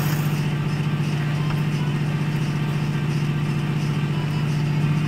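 A steady machine hum: a low drone with a noisy whirr above it, unchanging throughout, like a motor or engine running.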